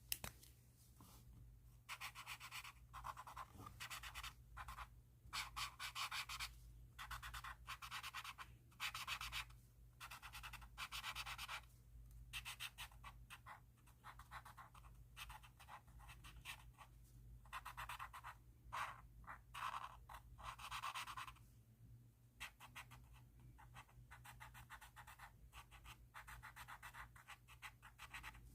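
Pen tip scratching across paper in a run of quick, irregular strokes and short longer passes, broken by a few brief pauses.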